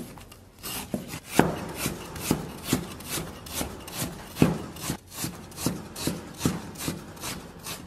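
Chinese steel cleaver slicing lean pork on a wooden chopping block: a steady rhythm of a little over two strokes a second, each a short slicing rasp ending in a knock on the board.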